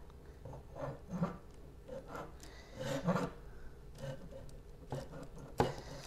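Hand handling of a cable: irregular rubbing and rustling scrapes as a cord is untied, with a sharp knock near the end.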